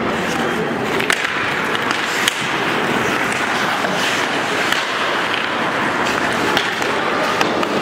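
Ice hockey skates scraping and carving on rink ice, with sharp clacks of sticks striking the puck and ice a few times, loudest about a second and two seconds in.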